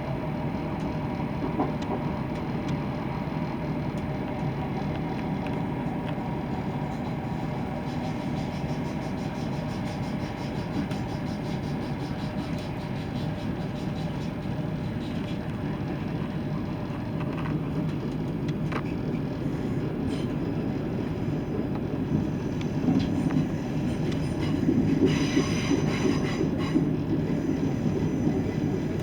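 Interior of a ScotRail Class 170 Turbostar diesel multiple unit running: steady underfloor diesel and wheel-on-rail noise, with the unit's characteristic howl as a set of steady tones in the first part that fades away. A brief brighter hissing rise comes about 25 seconds in.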